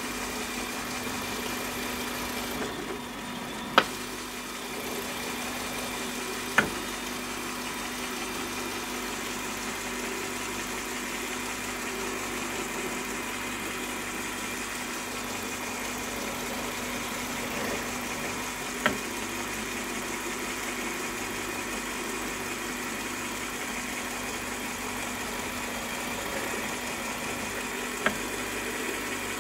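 Bench drill press motor running with a steady hum while finger holes are drilled in a wooden duduk body. Four short sharp knocks are spread through it.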